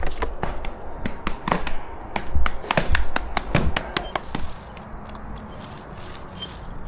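Rubber concrete stamping mats being tamped and handled on fresh concrete: quick, irregular sharp taps and knocks, several a second, that stop about four and a half seconds in and leave a quieter steady background.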